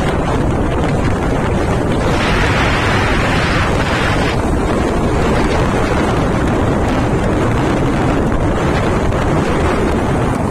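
Wind rushing over the microphone of a camera riding on a moving motor scooter, a steady loud rumble with road noise underneath. About two seconds in the wind turns hissier for a couple of seconds, then settles.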